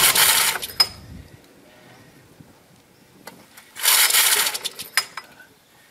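Recoil starter of a Honda E40 portable generator pulled twice, about four seconds apart. Each pull is a short burst of the engine being cranked over, and it does not keep running.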